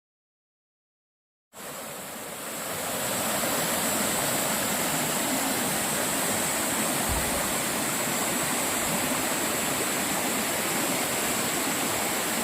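Steady rushing of water in a mountain valley stream, cutting in suddenly about a second and a half in, with a thin steady high hiss above it.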